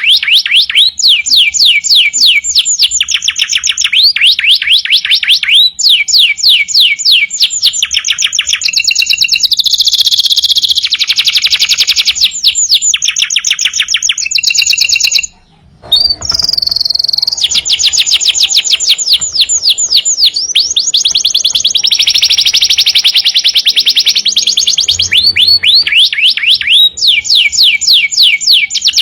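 Domestic canary singing loudly and without pause: fast trills of rapidly repeated falling notes, switching from one trill to the next every second or two, with a short break a little past halfway.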